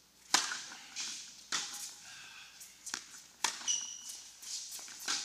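Tennis ball struck by racquets and bouncing in a doubles rally on an indoor court: a serve hit about a third of a second in, the loudest, then about four more sharp pops, each echoing in the hall. A brief high squeak comes just past the middle.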